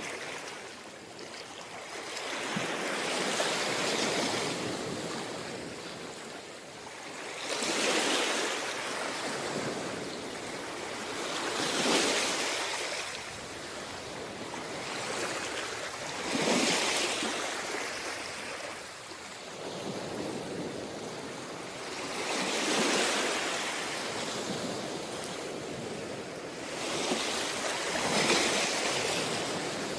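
Surf on a tropical beach: waves breaking and washing up the shore in a slow rhythm, six surges, each a few seconds apart, over a steady wash of water.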